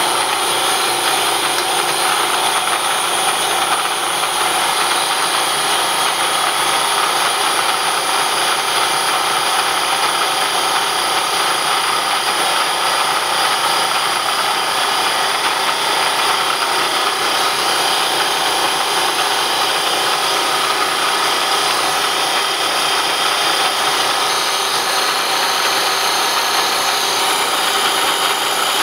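Bridgeport knee mill spindle running a small 1-inch grinding stone along the bevel of a steel planer blade, a light finishing pass of about a thousandth, mixed with the steady hiss of a cold gun blowing on the cut. An even, unbroken grinding noise.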